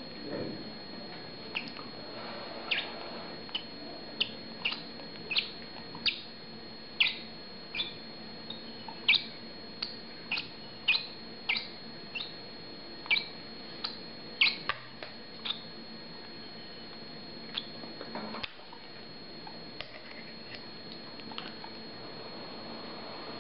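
Masked lovebird chick giving short, high, falling peeps, roughly one or two a second, while being spoon-fed: the begging calls of a hand-reared chick. The peeps thin out after about fifteen seconds.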